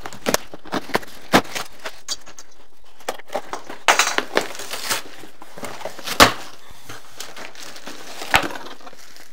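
Cardboard shipping box being opened by hand: a blade slitting the packing tape, then the flaps pulled open, in a run of sharp cardboard cracks and scrapes, the loudest about six seconds in.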